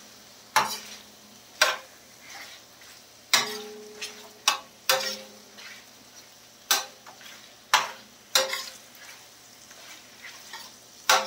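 Metal spatula scraping and clinking against a large steel tawa, about nine sharp strokes at uneven intervals, as fish pieces are stirred and fried in masala. A faint sizzle of frying runs between the strokes.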